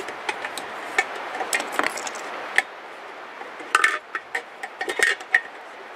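Small metal grill parts and hardware clicking and clinking against the steel lid during assembly: scattered light taps, then a quick run of ringing clinks about four seconds in.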